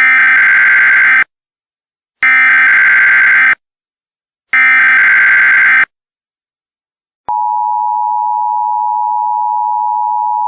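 Emergency Alert System header: three identical buzzy data bursts of about a second each, a second apart. Then, about seven seconds in, the steady two-tone EAS attention signal starts and holds, a little quieter than the bursts.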